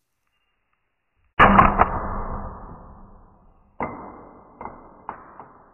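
A 3D-printed PLA test bar snapping under a lateral bending load: a sharp crack about a second and a half in that rings on and fades, then a second sharp crack near four seconds in followed by a couple of lighter knocks.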